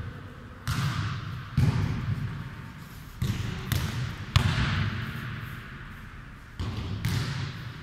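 A football being kicked and bouncing on a sports-hall floor in a futnet rally: about seven or eight irregular thuds, each with a hall echo.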